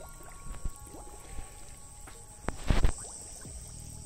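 A short, loud splash in the water about two-thirds of the way in, as a bamboo pole is plunged into the pond, with a few smaller knocks and splashes before it. A steady high insect drone runs underneath.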